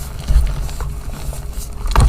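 Reformed gym chalk being crushed: scattered crackles and dull thuds, with a sharper crunch near the end.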